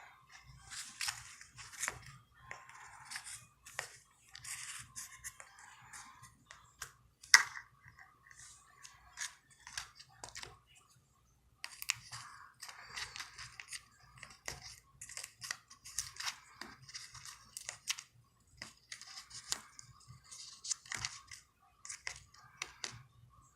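Homemade slime being squished and pulled by hand, heard as irregular sticky crackling in short bursts with brief pauses, and one sharp click about seven seconds in.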